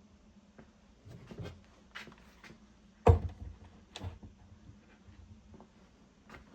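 Scattered light knocks, clicks and scrapes of hand work on MDF and tools at a small CNC router, with one sharp knock about three seconds in.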